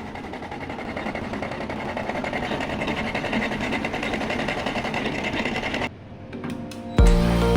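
Fan coil unit of an air-conditioning system running with a fast, steady rattling noise: the noise fault being shown. The noise cuts off about six seconds in, and music starts near the end.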